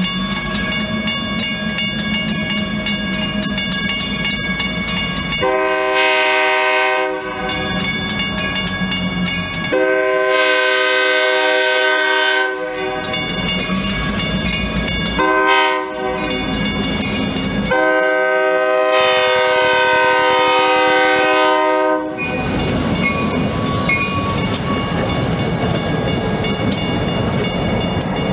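EMD GP38-2 diesel locomotive blowing its air horn for a grade crossing in the long, long, short, long pattern, a multi-note chord, the last blast held about four seconds. Under and after the horn comes the locomotive's two-stroke diesel engine, running louder and rougher as it rolls past close by with wheels on the rails. The crossing bell is ringing.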